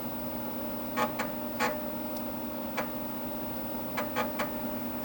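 Floppy disk drive clicking irregularly as its head steps while reading a file, over the steady hum of the computer's fan and drive motor.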